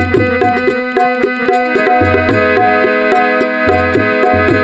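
Instrumental interlude of Indian devotional folk music: a melody instrument sustains steady held notes over a rhythm of hand-drum strokes, with no singing.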